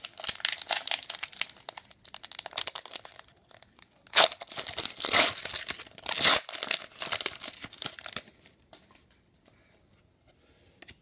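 A foil wrapper on an Upper Deck Artifacts hockey card pack being torn open and crinkled by hand, with three louder rips about four, five and six seconds in. The crinkling stops about eight seconds in.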